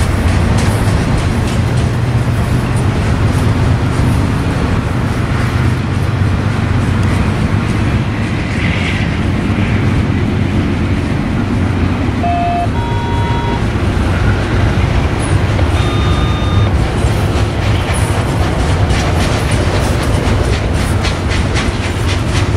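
Double-stack container freight train rolling past: a steady, loud rumble of wheels and well cars on the rails, with wheels clicking over the track more distinctly near the end.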